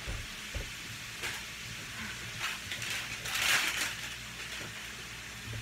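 Kitchen handling noises over a low steady hum and the faint hiss of ground beef frying in a skillet: a couple of soft knocks in the first second, then a burst of cloth rustling a little past the middle as hands are wiped on a dish towel.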